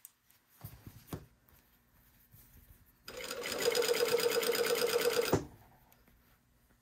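Straight-stitch sewing machine running steadily for about two seconds in the middle, then stopping, as it topstitches a neckline facing on knit fabric.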